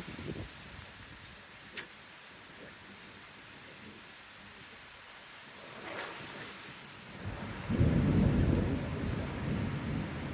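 Heavy rain hissing steadily in a thunderstorm; about eight seconds in a loud, low rumble of thunder starts and rolls on.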